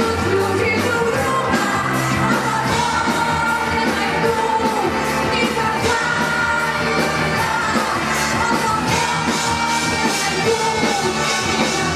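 A rock band playing with a woman singing lead over a steady drum beat, a live performance.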